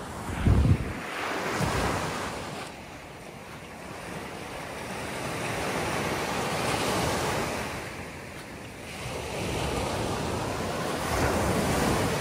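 Ocean surf washing onto a beach, swelling and fading about three times. A short gust of wind buffets the microphone about half a second in.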